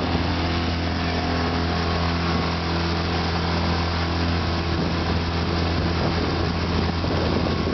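Small motorboat's engine running steadily at cruising speed, a constant drone, with the rush of water and wind as the boat moves along.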